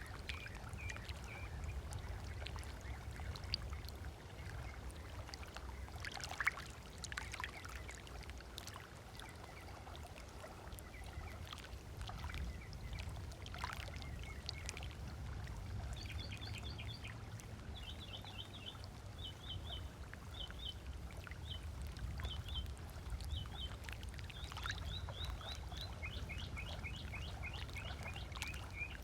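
Small waves lapping and splashing at a lake shore over a steady low rumble, with a bird calling in quick runs of short repeated chirps through the second half, dropping to a lower run near the end.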